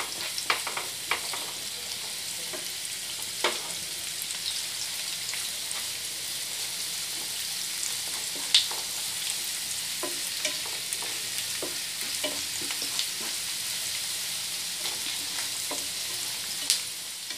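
Egg and chopped onion sizzling in oil in a frying pan over high heat, stirred and broken up with a spatula that now and then scrapes and knocks against the pan.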